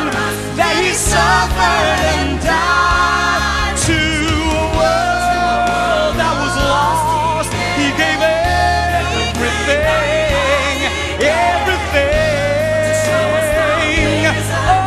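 Live gospel-style vocals: a woman and a man singing with wide vibrato and long held notes over a band with a sustained bass line.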